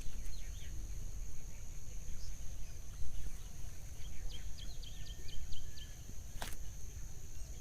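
Small birds chirping, with a run of quick repeated notes about four seconds in, over a steady low rumble and a thin high steady tone. A single sharp click comes near the end.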